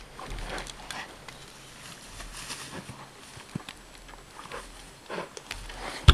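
An arrow-hit black bear thrashing and rolling on the ground, then walking off through grass and brush: scattered rustles and soft footfalls, with a sharp knock near the end.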